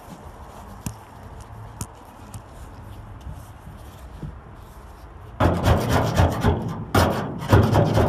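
Hand scraper rasping across the inside of a car's roof panel, stripping off old sound-deadening insulation. It is faint with a few light ticks at first, then rapid, loud scraping strokes start about five seconds in.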